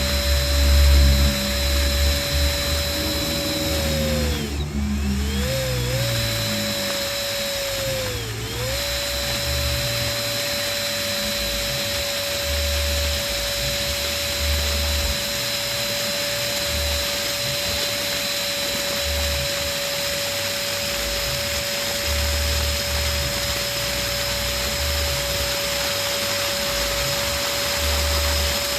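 Electric balloon pump motor running with a steady whine, its pitch dipping briefly and recovering twice, about five and eight seconds in.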